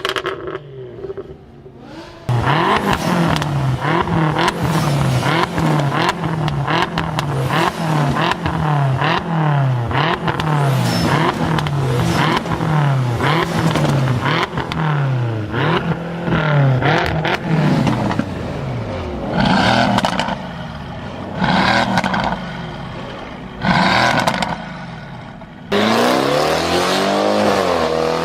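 Performance car engine revved again and again, about once a second, its exhaust crackling and popping as the revs drop. Then come three short blips a couple of seconds apart, and a longer rev near the end.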